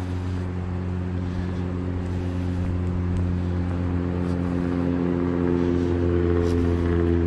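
Diesel truck engine running with a steady low drone that grows gradually louder as the truck approaches.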